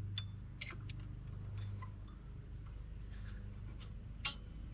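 A few light sharp metallic clicks as needle-nose pliers and a brake shoe return spring knock against the drum brake shoes and hardware while the spring is worked into place, over a steady low hum.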